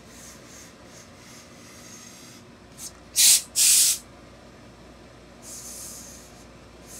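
Tailor's steam iron letting out short hissing blasts of steam: a brief puff, then two loud bursts back to back about three seconds in, and a softer burst near the end.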